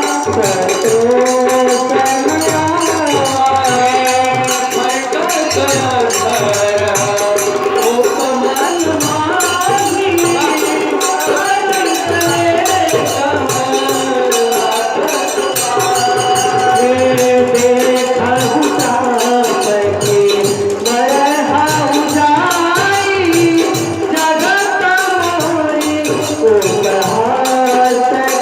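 Devotional Hindi song: a male voice sings a winding melody over a steady percussion beat.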